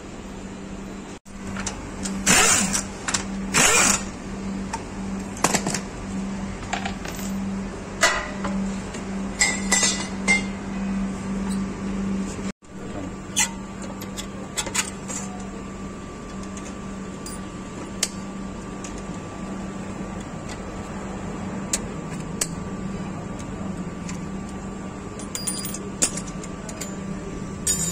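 Metal-on-metal clicks and knocks of pliers working the pad retaining pin out of a Mercedes-Benz front brake caliper, over a steady low hum. The knocks come thickest in the first half and only now and then later.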